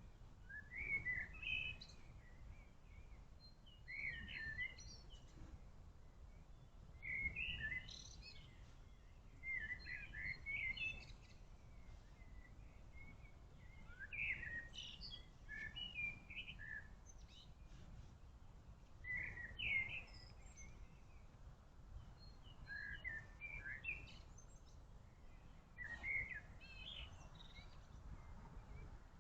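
Songbirds singing short chirping phrases about every three seconds over a steady low rumble.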